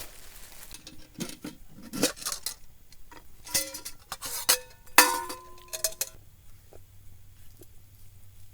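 Metal camp cookware and utensils clinking and clanking together in a series of ringing knocks, the loudest about five seconds in.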